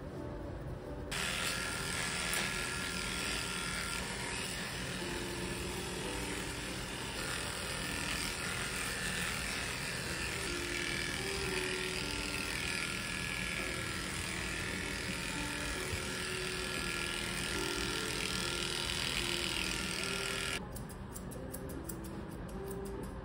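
Electric dog clipper with a clipper-comb attachment running steadily as it trims a Maltipoo's leg coat. It starts about a second in and cuts off near the end, followed by a few quick snips of grooming scissors, with soft piano music underneath.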